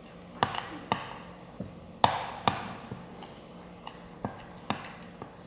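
Spoon knocking against a bowl while stirring a thick cornstarch-and-detergent slime paste: about seven sharp clinks, several in pairs about half a second apart, each with a brief ring.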